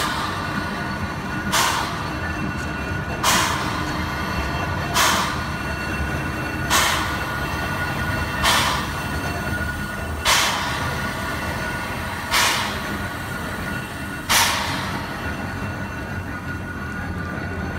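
Small steam switcher locomotive on a turntable giving off rhythmic hissing puffs of steam, one about every two seconds. The puffs slowly space out and stop a few seconds before the end, over a steady low rumble.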